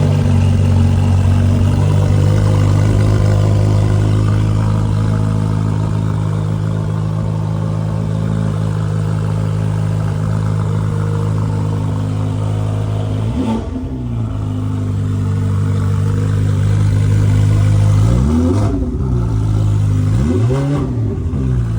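Ferrari 488 Pista's twin-turbo V8 idling steadily just after start-up, then blipped: a quick rev about halfway through and two longer revs near the end, each rising and falling back to idle.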